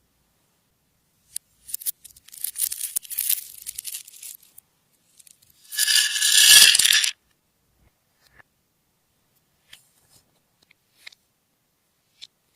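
Slime being handled and squished, giving irregular crackling and popping for a few seconds. This is followed by a louder dense squelching burst lasting about a second, then a few faint clicks.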